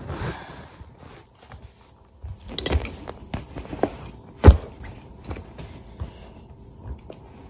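Scattered knocks and clicks from objects being handled, with one loud thump about four and a half seconds in.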